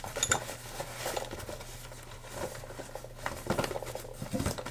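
Boxes of small metal cutting tools being handled and sorted: irregular clicks, light knocks and rustling of the boxes and packaging.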